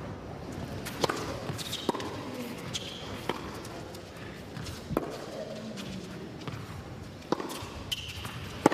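Tennis rally: about seven sharp knocks of the ball off the rackets and the court, roughly a second apart, with brief high shoe squeaks on the court surface between them.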